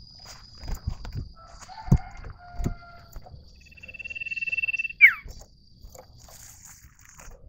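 Common iora whistling: a few short whistled notes, then one long, steady whistle that ends in a sharp downward slur, the loudest sound here. In the first three seconds there are a few dull thumps as a caged bird hops and flutters about.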